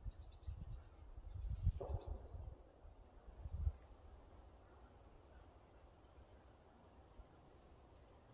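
Small forest birds calling with thin, very high chirps and quick trills, many overlapping. A few low thuds sound in the first few seconds.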